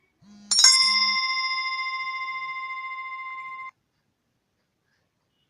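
Smartphone buzzing twice on its vibration motor while a bell-like chime rings out and fades slowly over about three seconds, then cuts off abruptly.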